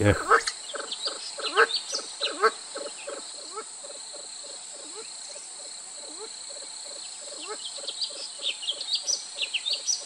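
Kalij pheasants giving low clucking notes, about three a second, with higher chirping calls mixed in that come thicker near the end, over a steady high insect drone.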